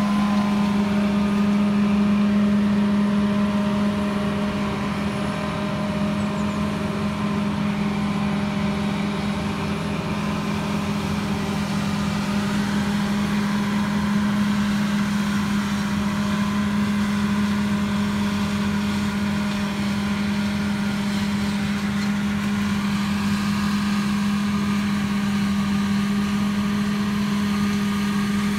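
Combine harvester running steadily in a field, a constant engine drone with a strong low hum and the whirr of its threshing gear.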